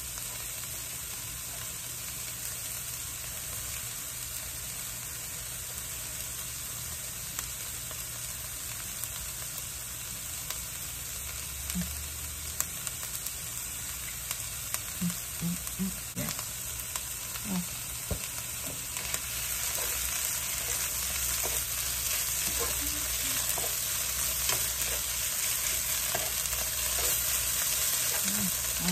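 Shredded trumpet mushrooms and bell peppers sizzling as they fry in a pan, with a few light knocks of a utensil. The sizzle grows louder about two-thirds of the way through.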